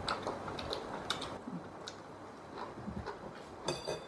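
Faint, scattered clicks and taps of chopsticks and spoons against bowls, a few sharper ones near the end.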